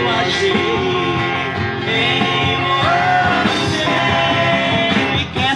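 Live band playing an instrumental break between choruses of a sertanejo love song: a lead melody with held and sliding notes over the band's steady accompaniment.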